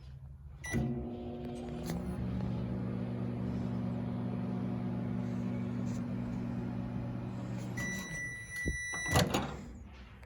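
Sharp microwave oven starting with a click and running with a steady hum. Near the end the hum stops, the oven gives one long beep, and a loud clack follows.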